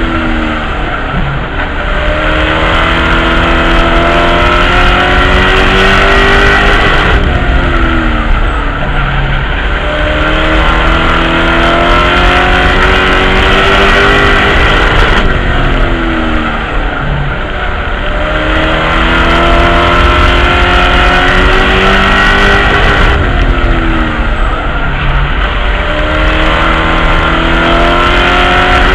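Race truck's V8 engine heard from inside the cockpit at racing speed, rising in pitch as it accelerates down each straight and dropping quickly as the throttle is lifted for each corner, about every eight seconds, over steady road and wind noise.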